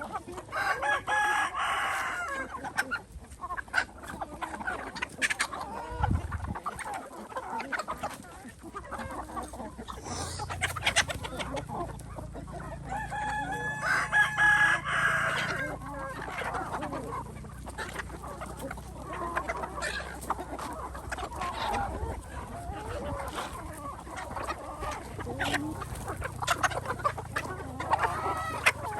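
A flock of chickens clucking, with two longer rooster calls, one about a second in and one about thirteen seconds in.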